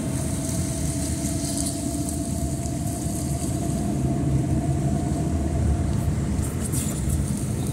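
Car driving slowly on a wet road, heard from inside the cabin: a steady low rumble of engine and tyres with a faint steady hum and a light hiss, and a few small clicks near the end.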